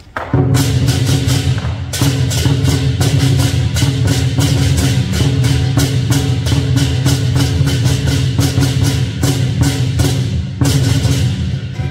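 Lion dance percussion: a large drum beating with fast, dense cymbal clashes. It starts abruptly, right after a brief lull.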